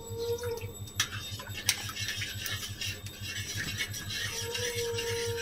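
A metal spatula knocks twice against a metal kadai, then scrapes and stirs through curry gravy that has just had water added. Under it run a steady hiss and a low pulsing hum.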